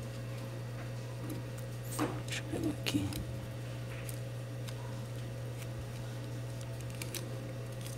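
Plastic pry card scraping and clicking against a phone's frame as it separates the glued front panel, a few short scrapes about two to three seconds in and once more near the end, over a steady low hum.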